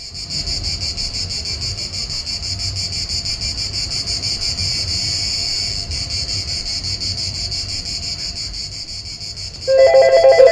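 Cicadas chirping in a dense, steady, rapidly pulsing chorus. Near the end a telephone starts ringing, louder than the insects.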